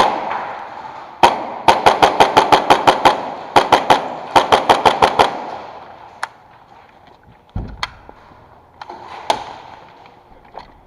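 Airsoft gun firing several quick strings of sharp shots, about eight a second, broken by short pauses, then a few scattered single shots and a dull thump.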